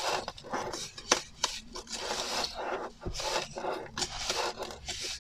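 A plastic piping bag crinkles and rustles in repeated short bursts as gloved hands squeeze and knead the crumbly bath-oil mix of bicarb and Epsom salts inside it.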